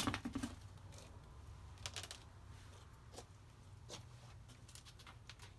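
Handling noises during hands-on work at an opened air handler: a knock at the start, then scattered light clicks and knocks, over a low steady hum.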